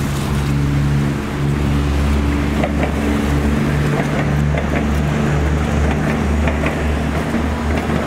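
Wind buffeting the microphone in a snowstorm, making a steady deep rumble. Under it runs the low hum of passing traffic engines, shifting in pitch every second or two.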